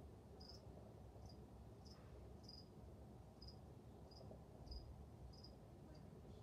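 A cricket chirping faintly and steadily, short high chirps about twice a second.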